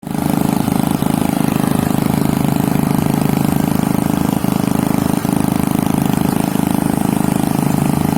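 Engine running steadily with a fast, even chug.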